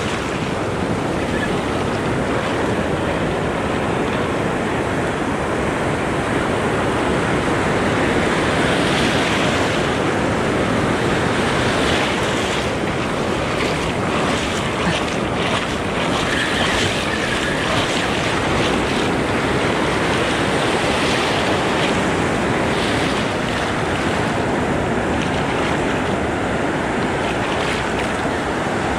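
Ocean surf washing and foaming in the shallows, with steady wind buffeting the microphone.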